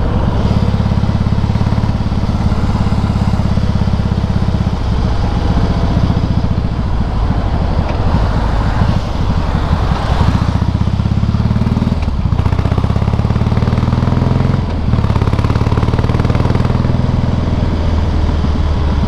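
Harley-Davidson V-twin with aftermarket Screaming Eagle exhausts running under way, heard from the bike with wind and road noise. The engine sound dips briefly a couple of times in the second half, as the throttle is eased.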